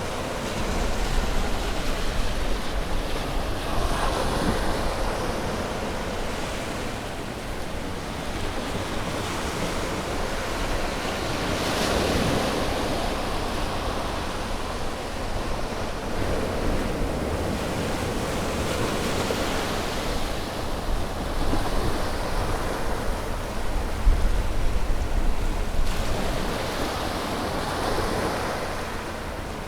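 Ocean waves breaking and washing on a shore, the surf rising and falling in swells every few seconds, with a steady low rumble of wind on the microphone.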